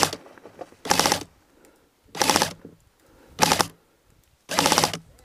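Airsoft electric rifle firing five short full-auto bursts, each about half a second of rapid clattering clicks, roughly one burst a second.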